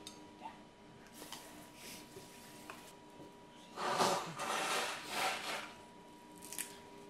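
Rubbing and scraping of a plastic mini-chopper bowl being handled and set back on its base, with a louder stretch of scraping lasting about two seconds near the middle.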